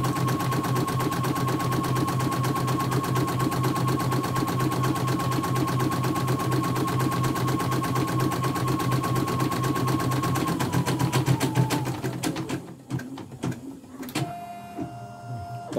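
CNY portable embroidery machine stitching at speed, the needle working in a rapid, even rhythm over a steady hum. About three quarters of the way in it slows and stops, and is followed by quieter clicks and a short steady tone near the end.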